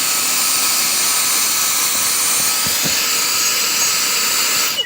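Dyson DC30 vacuum cleaner running at full suction through a Henry hose: a steady rushing with a thin, high whistle from the strong suction. It is switched off near the end and cuts out suddenly.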